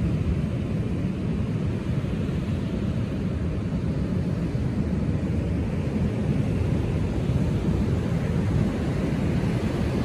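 Ocean surf breaking on a beach, a steady low rumble of waves with wind buffeting the microphone.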